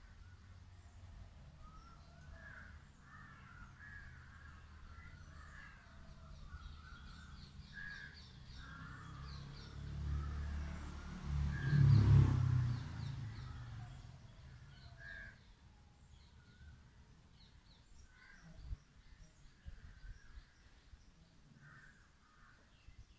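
Birds calling, with short wavering calls scattered through the first two-thirds. A low rumble swells to its loudest about twelve seconds in and then fades away.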